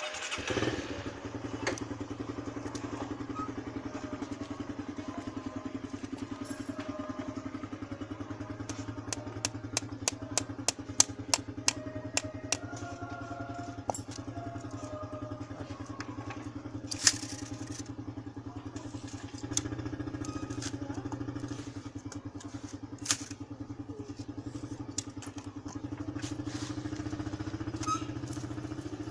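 A motor vehicle engine idling steadily, with sharp metallic clicks and taps from work on metal umbrella ribs over it. A quick run of about a dozen clicks comes about a third of the way in, and single knocks follow later.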